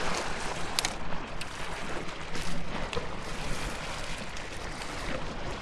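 Small waves splashing and washing against the rocks of a jetty, a steady wash of noise with a few light clicks.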